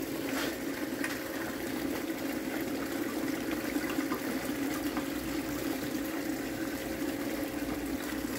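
Water running steadily through a small recirculating sluice box and splashing as a gold pan is rinsed into it, over the steady hum of the box's battery-powered water pump.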